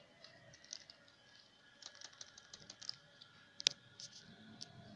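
Keys tapped on a Dell laptop keyboard while typing a password: a scatter of light clicks, with one sharper click about three and a half seconds in.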